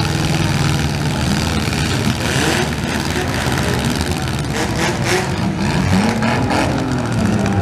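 Engines of several compact demolition-derby cars running and revving, their pitch rising and falling, with a cluster of short knocks about two-thirds of the way through.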